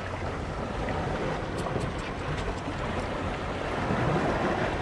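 Wind buffeting the microphone over the wash of bay water against a rocky shore, with a few faint light ticks between one and a half and three seconds in.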